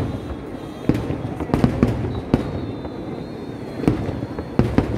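Fireworks display: about seven sharp bangs of bursting shells at uneven intervals, over a continuous low rumble of further explosions.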